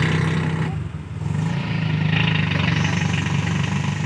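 Engine of a vehicle driving along a flooded street, running in a steady drone, with a hiss of wheels through water on the road that dips briefly about a second in.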